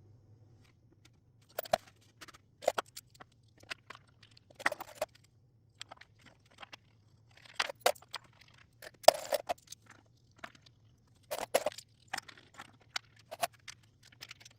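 Irregular knocks and clatters of hard objects being handled, about a dozen over the stretch at uneven spacing, over a faint steady low hum.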